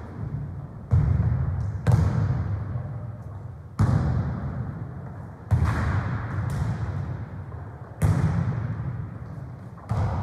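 A football being kicked and bouncing on a sports-hall floor during a football-tennis rally: about six sharp, loud thuds a second or two apart, each ringing on in the big hall's echo.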